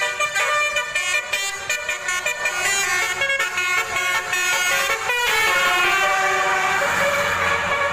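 A bus's telolet basuri multi-tone musical air horn playing a quick tune of short tooting notes. About five seconds in it settles into one long held chord, with a low rumble rising under it near the end.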